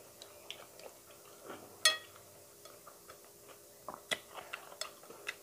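Eating with the fingers from a glass plate: small scattered clicks of chewing and fingers on the plate, with one sharp ringing clink against the plate about two seconds in and a run of clicks near the end.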